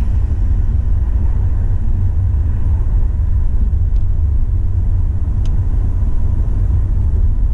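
A car driving along at steady speed: a steady low rumble of road and engine noise.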